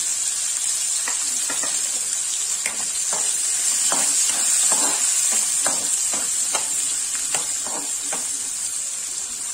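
Sliced onions sizzling in hot oil in a kadhai (Indian wok), with a spoon scraping and stirring through them in many short strokes from about a second in.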